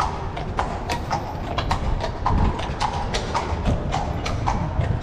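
A carriage horse's hooves clip-clopping on stone paving, several strikes a second, over the steady low rumble of the carriage's wheels.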